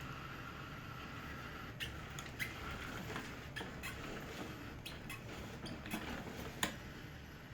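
Roomba-based robot running at its slowest speed: a steady low drive-motor hum with irregular sharp clicks and small squeaks, starting about two seconds in and loudest near the end.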